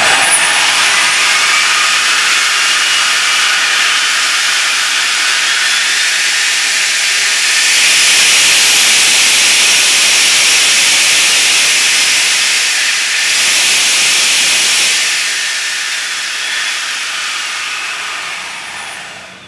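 70 mm electric ducted fan, driven by a 2839 outrunner motor (KV2850) on a 4S LiPo and dynamically balanced, running at high throttle with a loud, steady jet-like rushing hiss. It starts suddenly, is loudest from about eight to thirteen seconds in, and winds down over the last few seconds before cutting out.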